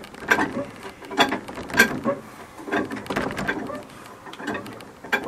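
Metal clanks and ratcheting as a tool is worked on a seized engine, trying to force its crankshaft around by hand; the engine stays jammed, which its owner takes for something broken inside.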